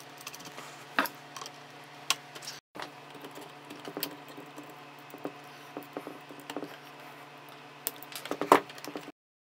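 Small clicks and taps of pliers and tiny screws against hard 3D-printed plastic engine parts during hand assembly, over a steady low hum. The sound drops out briefly a bit under three seconds in, and a louder cluster of clicks comes near the end before it cuts off.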